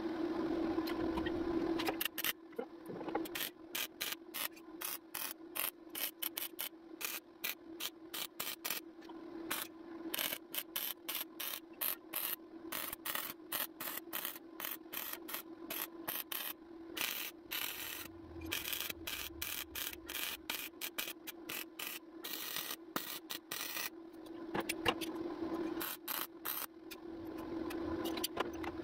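Wire-feed welder arc crackling in short bursts with brief pauses between, as a steel patch panel is stitch-welded onto a truck's front sheet metal. The crackling starts about two seconds in and stops near the end, over a steady hum.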